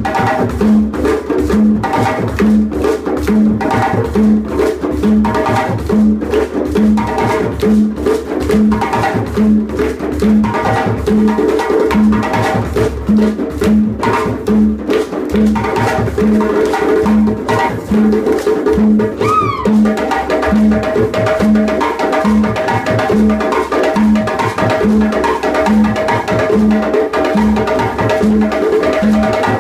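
An ensemble of djembe hand drums playing a steady West African dance rhythm, with a deep beat repeating evenly a little under twice a second underneath.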